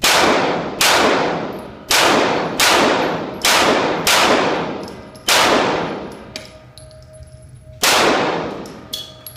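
Eight shots from a Springfield XD-S 9mm pistol fired in quick, uneven succession, each echoing for about a second off the walls of an indoor range. The first six come fast, then a pause before the seventh and a longer gap before the last one near the end.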